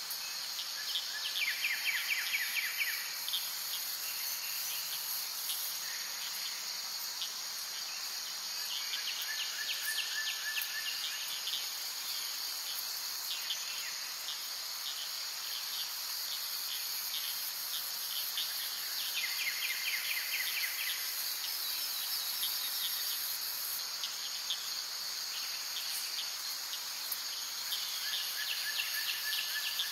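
Steady chorus of insects with a continuous high trill, and every nine seconds or so a short, rapid chirping trill a little lower in pitch.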